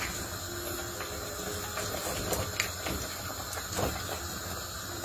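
Pot of boiling water with leafy greens blanching in it, giving a steady bubbling hiss, as a wooden spoon stirs the greens, with a few light knocks in the middle.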